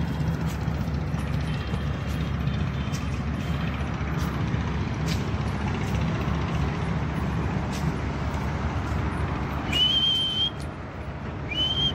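Steady low outdoor rumble with a few faint clicks. About ten seconds in and again just before the end come two short, high, steady whistles: a person whistling to call a dog.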